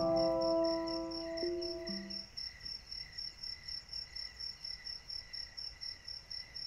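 Crickets chirping in a steady, fast pulsing rhythm. Held musical notes ring on and fade out in the first couple of seconds.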